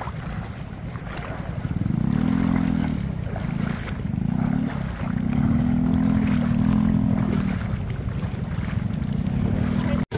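Shallow stream water rushing and splashing around wading legs, with a motorcycle engine running and revving up and down from about two seconds in.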